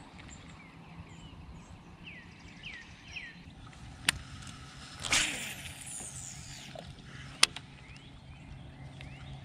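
A fishing rod being cast. A sharp click comes about four seconds in, then the loudest event about a second later: a brief whoosh of line running off the reel, falling in pitch. Another sharp click follows a couple of seconds after that. Birds chirp a few times before the cast, over a low steady hum.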